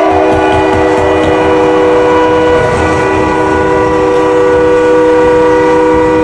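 An ice hockey arena goal horn blasting for a goal: one long, loud, steady chord of several pitches, like a multi-chime train horn.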